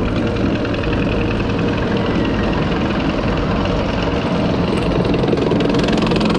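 B&M inverted roller coaster train climbing its chain lift hill: a steady mechanical rattle of the lift chain with rapid fine clicking and a low motor hum.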